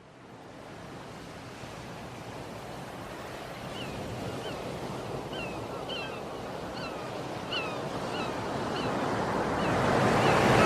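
Sea waves washing on the shore, fading in from silence and growing steadily louder, with short high chirps repeating from about four seconds in.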